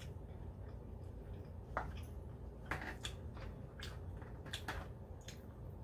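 Eating sounds: rotisserie chicken meat being pulled apart with fingers and a fork, and chewed, heard as scattered short clicks and crackles over a low hum.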